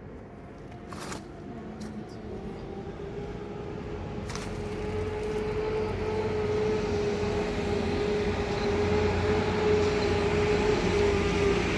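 A motor or engine running with a steady hum that grows louder over the first six seconds and then holds, with two sharp clicks about one and four seconds in.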